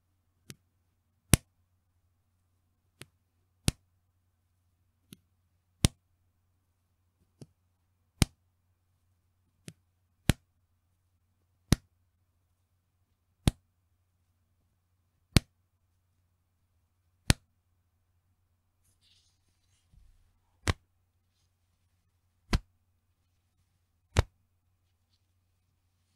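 Elastic band of a bra being pulled and let go, snapping back with a sharp 'pechin' slap, repeated every one to two seconds. In the first half, softer snaps fall between the loud ones.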